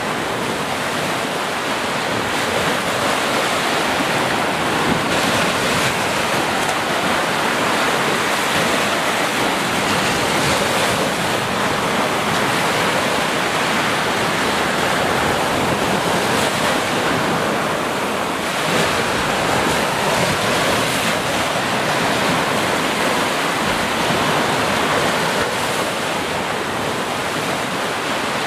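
Ocean surf: small waves breaking and washing up a sandy beach, a steady rush of water that swells slightly now and then.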